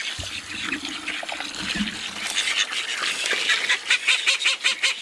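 Ducks calling in a rapid, evenly spaced run of loud quacks, about four to five a second, starting a little past the middle and growing louder. Before that, a steady hiss of a garden hose running.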